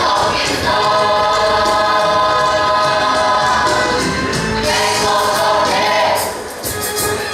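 Gospel choir singing with instrumental accompaniment, long held notes, dipping briefly near the end.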